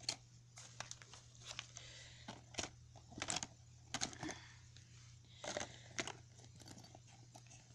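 Small cosmetics in plastic packaging rustling, crinkling and knocking together as they are put back into a bag, in several brief, irregular handlings.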